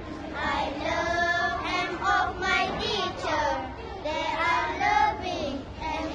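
Young girls singing together, a short song or chant with some longer held notes.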